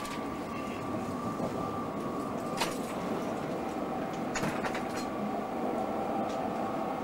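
Running noise inside a moving passenger train coach: a steady rumble with a few sharp clicks as the wheels cross rail joints and points.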